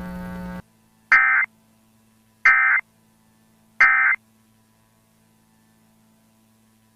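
Emergency Alert System end-of-message (EOM) tones: three short bursts of shrill two-tone digital data warble, about a second and a half apart. They mark the end of the alert.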